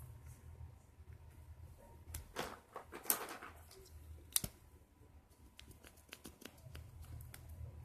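Scattered light clicks and taps from small objects being handled, with a short scratchy rustle about three seconds in, a sharper click a second later, and a run of small quick ticks near the end.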